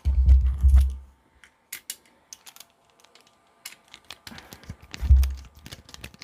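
Irregular small metallic clicks and rattles of screws and a screwdriver being handled while a hi-fi tuner's case is screwed back together, with dull low thuds about the first second and again near 5 s as the unit is knocked on the bench.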